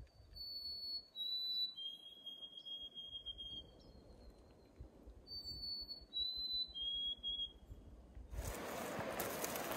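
A small songbird sings a clear whistled song of three notes, each lower than the last, the last held longest, twice. Near the end a steady rushing noise cuts in.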